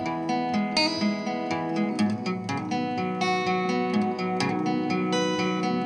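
Recorded guitar music played back through a Pioneer 202W reverberation amplifier, its spring reverb turned up to way too much.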